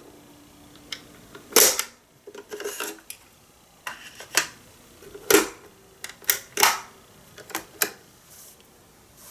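Mechanical clicks and clunks from a 1970 Magnavox cassette player's cassette door and transport as the door is opened, the cassette is lifted out and the door is shut again. About a dozen sharp clicks, the loudest about a second and a half in and again about five seconds in.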